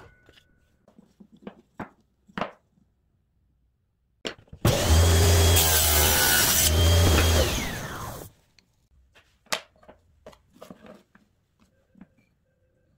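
A few light knocks of plywood pieces being handled, then a table saw runs and rips a thin strip of plywood for about three and a half seconds before winding down. A few more light knocks of wood follow.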